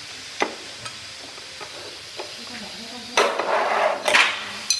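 Tile-laying work: a few sharp taps and clinks, then about a second of loud scraping and a second, shorter scrape near the end.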